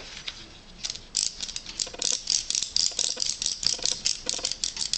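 Stripped gears in the right front servo of an RC helicopter, clicking rapidly at several clicks a second, starting about a second in: the sign that the servo's gears are stripped.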